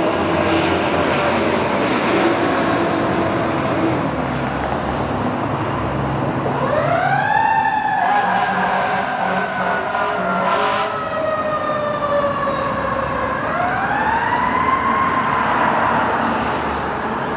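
Tiller ladder fire truck's engine and road noise as it passes and pulls away, then its siren winds up steeply about six seconds in and slowly falls in pitch over several seconds, winding up and falling once more near the end, in the pattern of a mechanical siren spinning up and coasting down.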